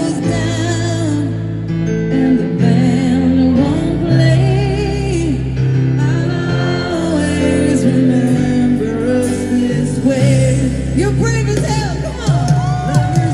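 Live pop concert music: a singer's gliding melody over held band chords with guitar.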